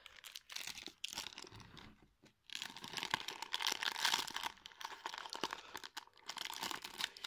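Packaging crinkled and torn by hand: a dense, irregular crackling with a short pause about two seconds in.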